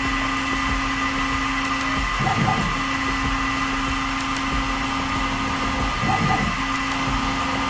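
Tormach CNC mill spot drilling cast iron with an insert carbide spot drill at 1000 RPM on a G73 peck cycle: a steady machine tone over constant noise, broken twice by short rushes of noise about two and six seconds in.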